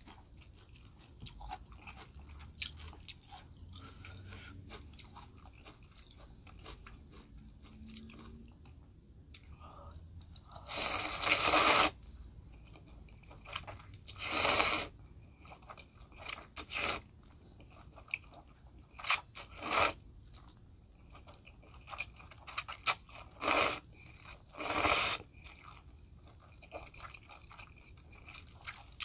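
Close-miked eating of spicy champon noodles: wet chewing and small mouth clicks, broken by several loud slurps of noodles into the mouth. The longest slurp, about a second and a half, comes about ten seconds in, and shorter ones follow every few seconds.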